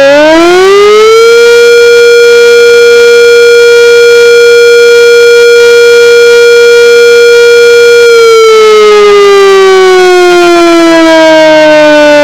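Sentry 3V8-H outdoor warning siren sounding a full attack signal. Its pitch climbs over about a second, holds steady for about seven seconds, then slowly falls through the last four seconds. Very loud and distorted by an overloaded recorder.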